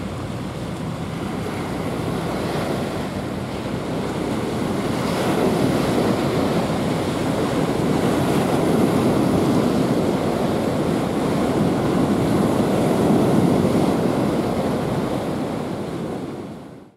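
Wind buffeting the microphone over harbour water washing against the shore, a rough, steady rushing that grows louder after about five seconds and fades out at the very end.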